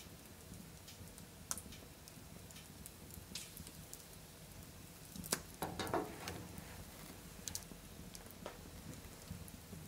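Wood fire embers crackling, with scattered small pops and a louder run of crackles about five seconds in.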